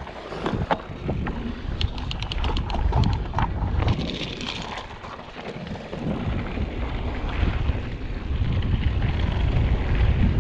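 Specialized Enduro mountain bike ridden along a dirt trail: wind buffeting the microphone over tyre noise, with sharp clicks and rattles from the bike, including a quick run of clicks about two seconds in.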